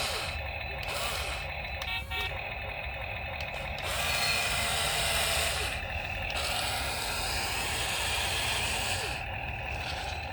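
Toy RC excavator's small electric motors whirring over a steady high whine, starting and stopping several times as the arm and tracks are worked.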